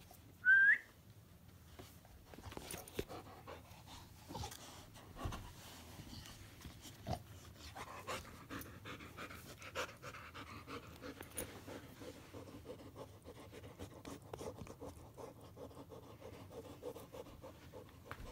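Dog snorting and panting in short, irregular, pig-like breaths. A brief high squeak rising in pitch sounds about half a second in, louder than the breathing.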